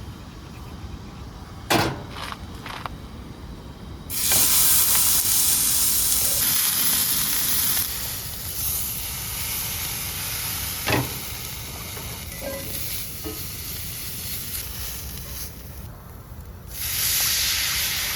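Food sizzling in a hot frying pan, flaring up suddenly about four seconds in, easing to a steadier sizzle, then flaring again near the end. A sharp knock comes shortly before the first flare.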